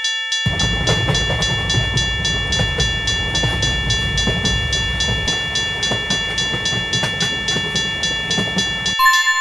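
Railway level-crossing warning bell ringing about three times a second, with a train passing from about half a second in; the train noise stops abruptly near the end.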